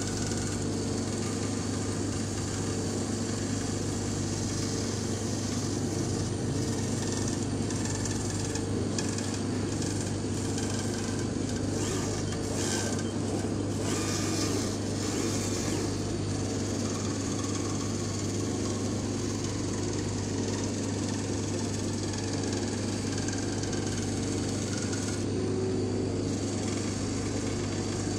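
Laser cutter running while it cuts foam sheet: a steady low machine hum with a constant drone underneath, and a whirring hiss that shifts irregularly as the cutting head moves along the cut lines.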